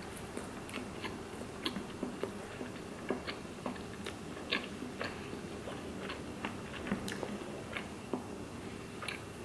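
Close-up chewing of a mouthful of burrito: irregular wet mouth clicks and smacks, a few each second.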